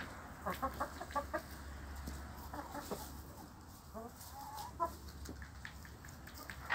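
Amrock chickens clucking: a quick run of short clucks about half a second in, a few more around three seconds, and a longer call near five seconds.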